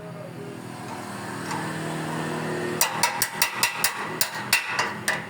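A steady machine hum, joined about three seconds in by a run of about ten sharp knocks, roughly four a second, that stops just before the end.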